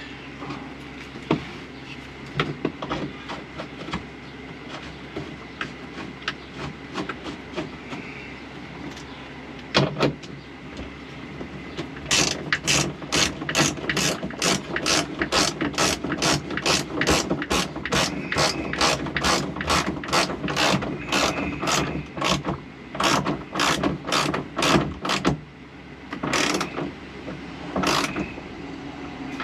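Hand ratchet driving in a seat belt anchor bolt. It starts with light, scattered clicks, then from about halfway through runs into a steady stream of sharp ratchet clicks, roughly three a second, with a couple of short final bursts near the end.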